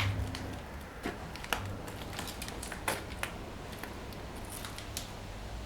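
A few scattered light clicks and taps over a faint background hiss, the sharpest about a second in and two more around the middle.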